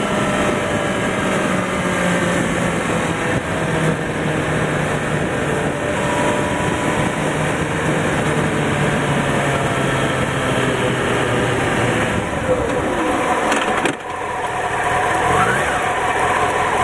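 Honda CBR900RR Fireblade's 929 cc inline-four engine heard from the rider's seat with heavy wind rush, its note falling steadily as the bike decelerates from speed. About 14 s in the sound drops briefly, then a short rise in revs follows as it slows nearly to a stop.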